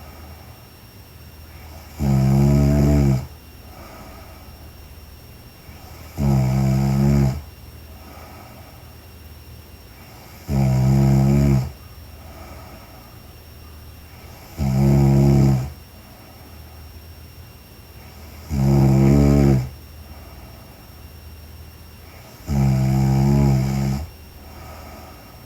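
A woman snoring in her sleep: six snores about four seconds apart, each lasting about a second.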